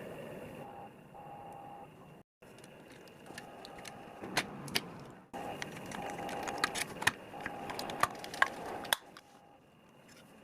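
Workshop hand-work sounds: a run of small sharp clicks and taps, busiest in the middle few seconds, over a faint steady hum, broken off abruptly a couple of times.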